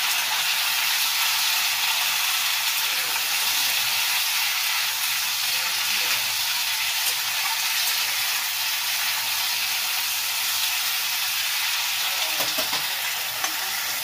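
Vegetables sizzling in hot mustard oil in a metal kadhai: a steady frying hiss, while a metal spatula stirs them, with a few light clicks of the spatula against the pan near the end.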